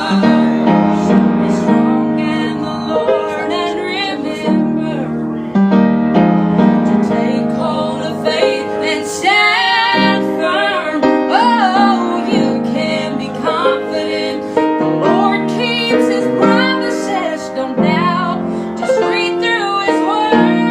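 Gospel song: a woman's voice singing with ornamented, sliding runs over sustained piano or keyboard chords.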